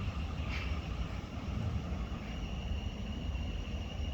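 Class 450 Desiro electric multiple unit running on the line: a steady low rumble with a faint, steady high whine.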